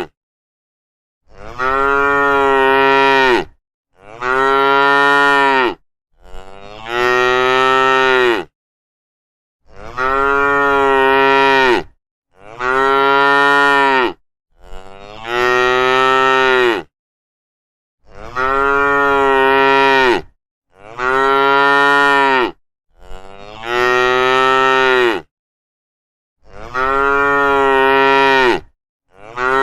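Cattle mooing: about ten long, drawn-out moos in a row, each about two seconds, with short gaps of dead silence between them.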